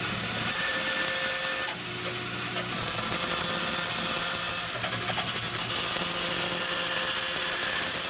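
Bandsaw running and cutting through a block of wood: a steady motor hum with the blade hissing through the cut, dipping briefly about two seconds in.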